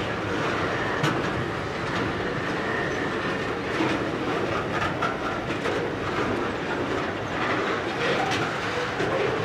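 Intermodal container wagons of a long freight train rolling past, wheels clicking irregularly over the rail joints against a steady rumble. A faint high wheel squeal comes in briefly near the start.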